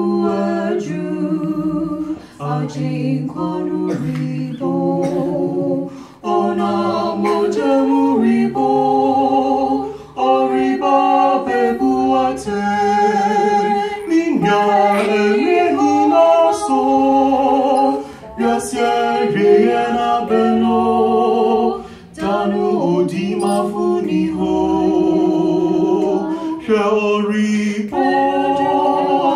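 A man and a woman singing together into microphones, without instrumental backing, in sustained phrases about four seconds long with brief breaths between them.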